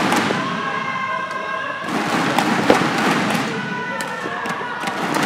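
Badminton hall crowd noise with long held tones that change pitch, and sharp racket hits on a shuttlecock during a rally, the loudest about two and a half seconds in.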